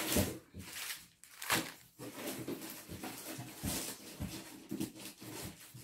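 Clear plastic bags of packaged knitting needles rustling as a bundle of them is handled and laid down on the table, in several short irregular spells.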